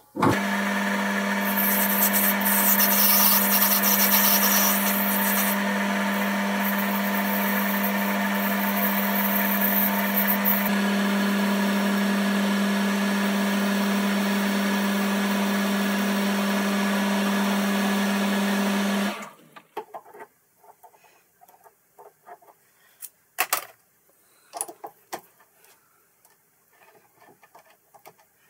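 Boxford lathe running with a steady hum while its tool turns a brass bar down to 10 mm diameter, the hiss of cutting heard in two spells during the first ten seconds. The lathe stops about 19 seconds in, and light clicks and knocks follow as the brass part is handled in the chuck.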